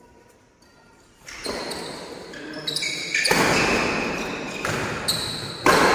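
Badminton doubles rally in a large echoing hall. After a quiet first second there are sudden sharp sounds of racket hits and footfalls, each ringing on in the room, with players' voices.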